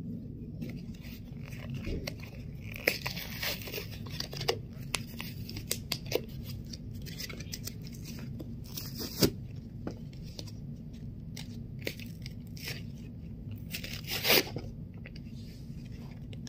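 Toy packaging being torn open by hand: a plastic wrapper ripped and crinkled, then paper peeled off, with scattered sharp crackles and two louder rips about nine and fourteen seconds in.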